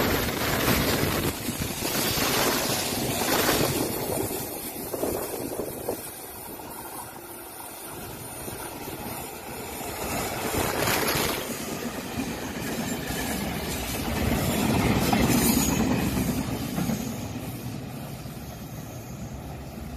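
EMU1200 Tze-Chiang electric multiple unit train running, its noise loud at first, dying down, swelling again in the middle and fading near the end.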